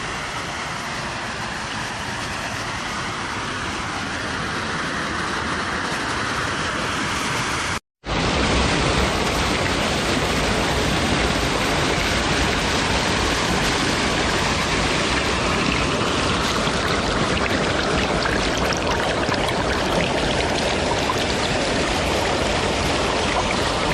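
Steady rush and splash of creek water pouring over a small waterfall. It cuts out for a moment about eight seconds in, then comes back a little louder.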